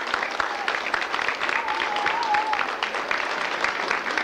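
Audience applauding in a school hall, a dense steady patter of clapping hands, with a thin wavering whistle-like tone for about a second near the middle.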